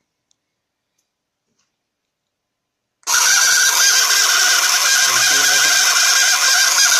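Small 1.5 V brushed DC motor starts suddenly about three seconds in and runs steadily with a high-pitched whir. It is driven by a brushless ESC through a three-diode half-wave rectifier.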